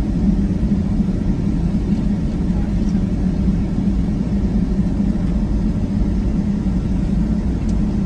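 Steady low rumble inside the cabin of a Boeing 757-200 taxiing, heard over the wing: the engines at taxi power and the wheels rolling on the taxiway.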